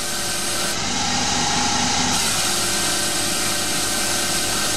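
Small CNC lathe turning an aluminium workpiece, driven by its half-horsepower 180-volt DC spindle motor: a steady cutting noise with a whine that comes in about a second in and drops out about a second later, and a lower tone from about the middle on.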